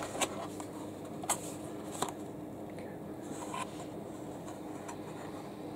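Plastic blister packaging of a die-cast toy car being handled: a few sharp clicks and light crackles of the plastic blister and cardboard backing card, over a faint steady hum.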